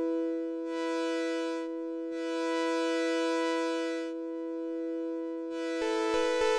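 Arturia MiniFreak synthesizer's Formant oscillator sounding a held note while its Interval parameter is turned. The steady tone keeps its pitch as a bright upper layer fades in and out three times, and near the end a rapid irregular clicking joins in.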